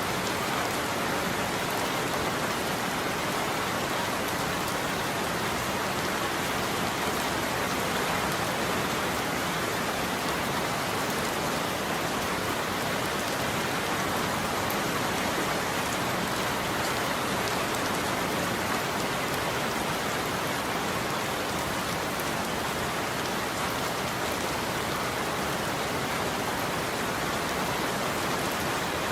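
Steady heavy rain falling on a surface, an even continuous hiss with no thunder.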